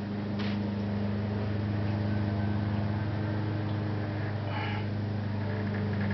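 Steady low machine hum, with a faint metallic click about half a second in and a brief scrape about four and a half seconds in.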